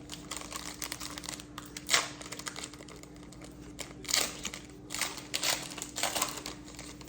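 Pokémon trading cards being handled and flipped through, making irregular light clicks and rustles, with sharper snaps about two seconds in and again around four seconds. A steady low hum runs underneath.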